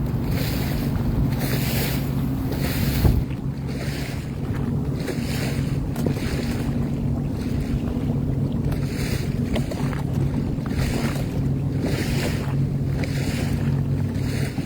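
2023 Sea-Doo Fish Pro's Rotax three-cylinder engine running steadily at cruising speed under cruise control, with water rushing past the hull and wind on the microphone in a hiss that swells about once a second. One knock about three seconds in.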